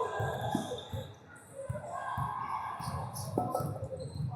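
Basketball game on an indoor court: a few dull thuds of the ball bouncing over indistinct voices.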